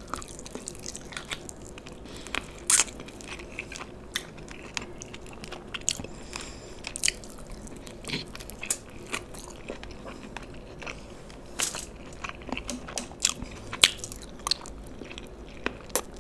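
Close-miked biting and chewing of fried chicken lollipops in sticky sauce: irregular crunches and wet mouth clicks, with sucking and smacking as the sauce is licked off the fingers and the bone.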